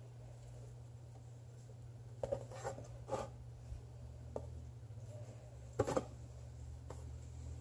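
Cotton macrame cord being handled and pulled through knots on a clipboard: soft rustling and a few short scratchy brushes, the loudest pair about six seconds in.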